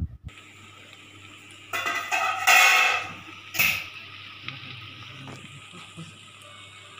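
A ladle scraping and stirring through dry chicken thoran in an earthenware pot, loudest in a long scrape about two seconds in and a shorter one at about three and a half seconds, over a steady low hum.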